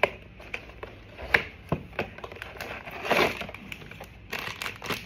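A cardboard Labubu blind box being opened and the foil bag inside pulled out and handled: scattered clicks, scrapes and crinkling of card and foil, loudest about three seconds in.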